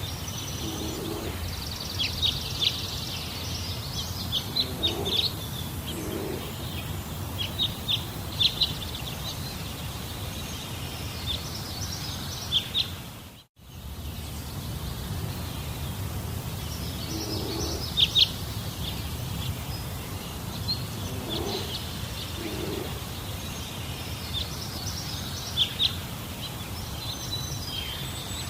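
Nature ambience: a steady low rumble with short bird chirps and calls scattered throughout. It drops out briefly about halfway through.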